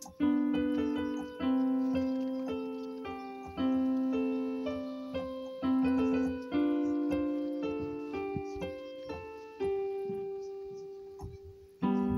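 Background music: a piano playing slow chords, a new chord struck every second or two and left to fade.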